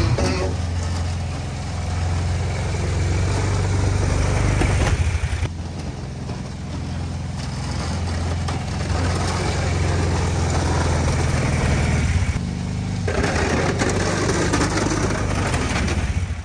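Kawasaki Brute Force 750 ATV's V-twin engine running while plowing snow, its note easing off twice and picking up again.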